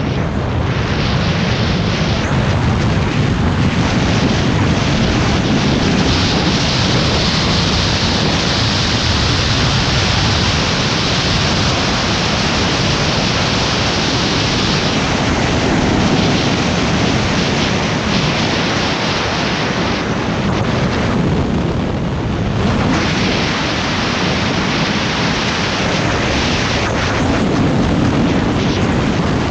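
Continuous loud wind noise buffeting the microphone of a skier schussing fast in a tuck down a groomed slope, mixed with the hiss of skis running over the snow. The rush swells and eases a little through the run but never stops.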